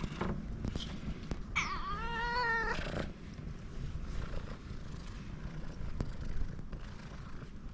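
Orange tabby cat giving one wavering meow of about a second and a half, roughly two seconds in, while being stroked: a meow of pleasure at the petting.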